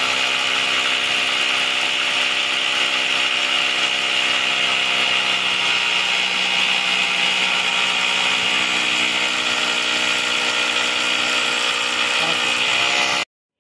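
Electric hammer drill boring a hole into a concrete parapet, its motor running at a steady whine under continuous load, then stopping abruptly near the end.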